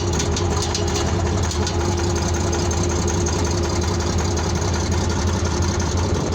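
1970 Case 1150 crawler bulldozer's engine idling steadily, with a steady hum and no change in speed.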